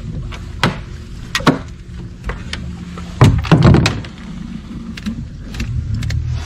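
Knocks and clatter of gear against a plastic boat's hull as a fisherman moves about in it, the loudest cluster about three seconds in, over a steady low hum.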